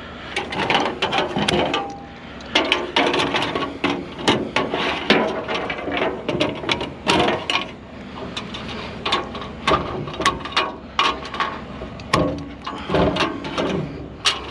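Rapid, irregular clattering, clicking and knocking of scrap items being handled and worked by hand.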